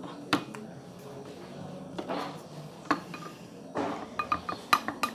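A utensil clinking against a hard bowl: a few separate taps, then a quick run of ringing clinks in the last second or so, as when stirring briskly.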